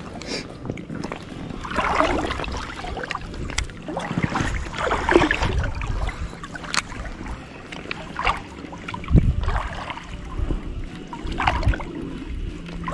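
Water sloshing and splashing around a float tube in uneven bursts every few seconds, over a low rumble.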